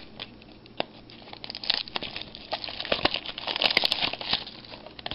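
Plastic wrapping being picked at, torn and peeled off a trading-card pack, crinkling and crackling: a few separate crackles at first, then dense crinkling from about a second and a half in.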